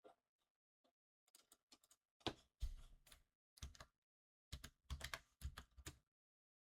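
Computer keyboard being typed on in two quick flurries of keystrokes, with a few single key clicks before them.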